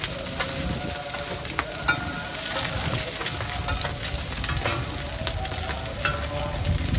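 Mussel and egg omelettes sizzling in oil on a large flat griddle, with metal spatulas now and then scraping and clicking against the pan.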